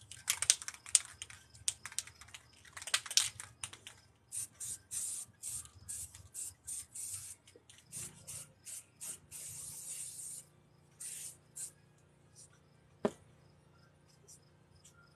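An aerosol spray paint can rattling as it is shaken for a few seconds, then spraying in a string of short hissing bursts, some lasting about a second. A single sharp knock comes near the end.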